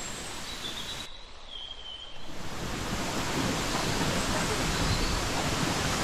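Duwili Ella waterfall rushing: an even noise of falling water. It dips for about a second, with a brief high whistle, then comes back fuller and louder from about two seconds in.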